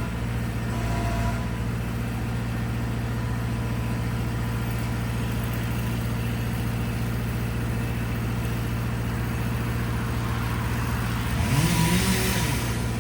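Engine running steadily, revved up and back down once near the end, with a rush of hiss during the rev.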